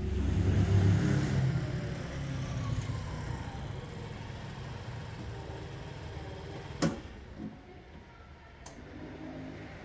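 A motor vehicle's engine passing close by, loudest in the first second or so and then fading into a low rumble. Two sharp clicks follow, one about seven seconds in and one near the end.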